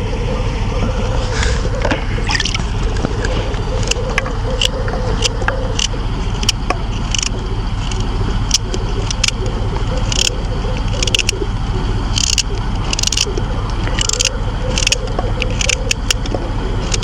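A knife cutting a raw carrot into large chunks: a run of short, crisp snaps, roughly one every half second to second. Behind them is a steady low rumble with a wavering hum.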